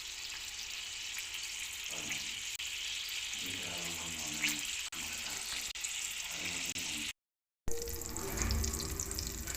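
Batter sizzling in a hot frying pan on the stove, a steady frying hiss. The sound cuts out completely for about half a second, seven seconds in.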